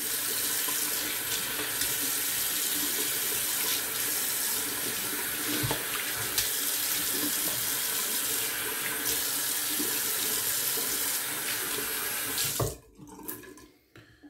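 Bathroom sink tap running steadily into the basin, turned off near the end.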